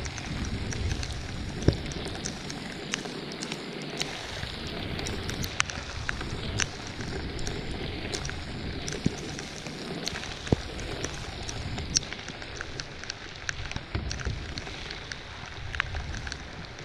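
Heavy rain falling: a steady hiss with frequent sharp ticks of drops landing close by.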